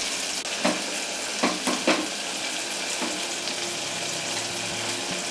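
Marinated sankara fish pieces shallow-frying in oil with a steady sizzle, done on one side and being turned over with a spatula. The spatula clicks against the pan a few times in the first two seconds.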